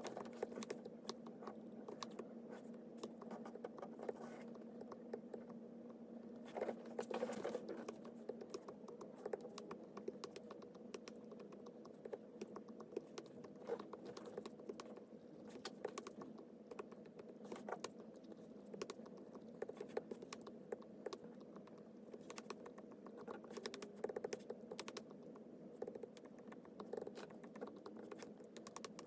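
Stylus tapping and sliding on a tablet's glass screen: many faint quick clicks over a low steady hum.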